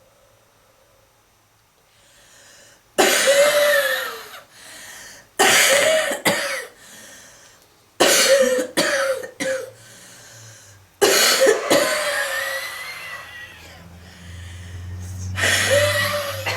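A smoker's heavy, deep coughing fit: five bouts of harsh, rasping coughs, several strokes each, the first about three seconds in, with breaths drawn in between.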